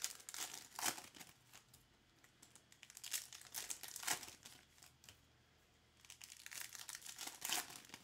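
Foil wrapper of a trading-card pack crinkling and tearing as it is torn open by hand, in three spells of rustling with short pauses between them.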